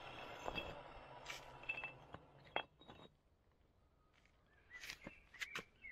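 Fireclay brick being handled and set down on concrete among broken brick pieces: a few light clinks and knocks, most of them in the first three seconds, with a couple more about five seconds in.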